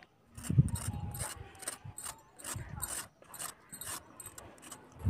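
Serrated hand peeler scraping the skin off a black carrot in quick repeated strokes, about three or four a second, with a few low thuds.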